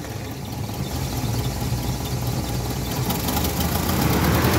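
Carbureted car engine idling just after starting, running with its failed ignition resistor bypassed by a jumper wire. The engine grows a little louder near the end.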